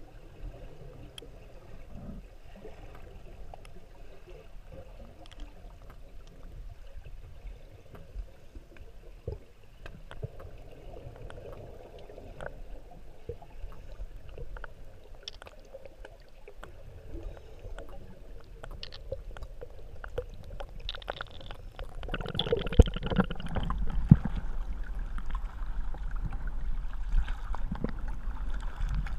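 Muffled underwater sound through a camera housing, with scattered faint clicks. About two-thirds of the way through it turns suddenly louder, with water sloshing and splashing against the camera as it comes up into choppy surface water.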